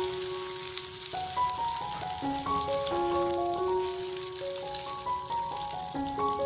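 Butter and sugar sizzling and bubbling in a frying pan as they are stirred together for butterscotch, a steady frying hiss. A soft mallet-percussion melody plays in the background.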